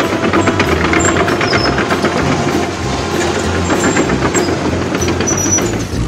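Cartoon sound effect of a diesel excavator engine running: a fast, even clatter over a low rumble. The sound changes abruptly at the very end.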